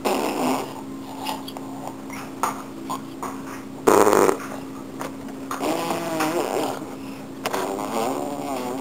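A baby blowing raspberries, buzzing its lips with a wobbling hum several times over. The loudest, shortest buzz comes about four seconds in.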